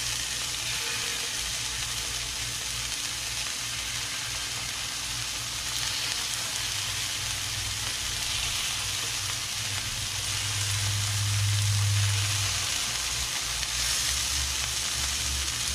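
Dove breasts frying in hot canola oil in a cast-iron skillet, a steady sizzling hiss as the pieces are laid in. A low hum swells for a couple of seconds about ten seconds in.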